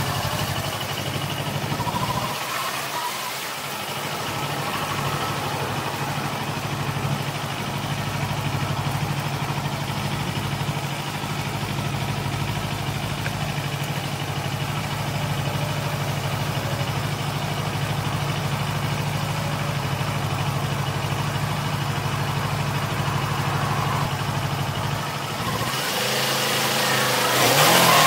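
Motorcycle engine idling steadily while the bike waits at a traffic light. Near the end the sound grows louder and noisier.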